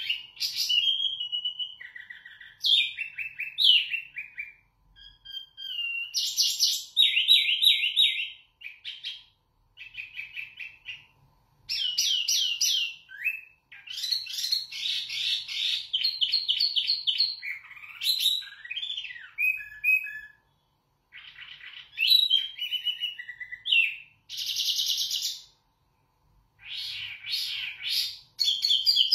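Caged wambi mini songbird singing loudly and clearly: a long run of varied phrases of fast trills, rapidly repeated notes and short whistles, broken by brief pauses.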